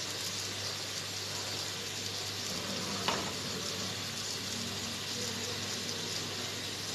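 Beef sausages, sliced peppers and onions sizzling steadily in a frying pan on the stove; the pricked sausages are releasing their fat and juices. One light tap is heard about three seconds in.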